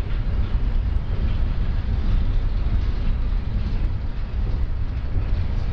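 Freight train cars rolling past on the track: a steady, continuous rumble of wheels on rails.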